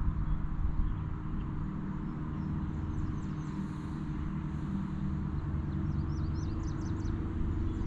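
Wind buffeting the microphone in a steady low rumble, with a small bird chirping a few quick notes about six to seven seconds in.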